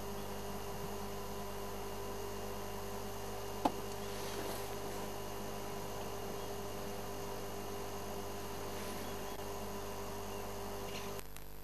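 Steady electrical hum with hiss, holding several fixed tones, and one sharp click a little under four seconds in.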